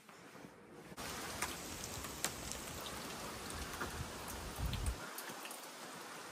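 Light rain and gusting wind from a hurricane's early bands, coming in abruptly about a second in as the door opens outside. Steady rain hiss carries scattered sharp drip ticks, and a low wind rumble swells just before five seconds.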